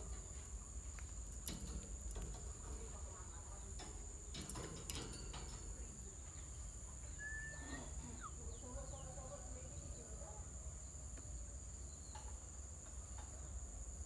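Steady high-pitched insect drone, with a few faint clicks and one short bird chirp about seven seconds in.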